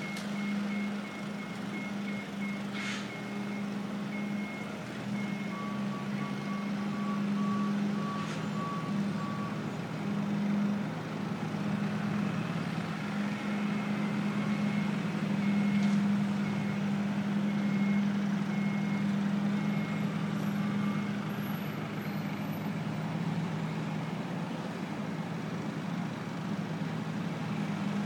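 Delivery truck backup alarms beeping over a steady low drone. A high beep repeats in two long stretches, and a lower-pitched beeper sounds for a few seconds in between.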